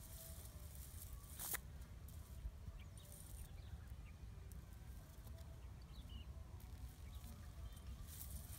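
Quiet outdoor ambience: a steady low rumble with a few scattered clicks and rustles, the sharpest click about one and a half seconds in, and faint short high chirps.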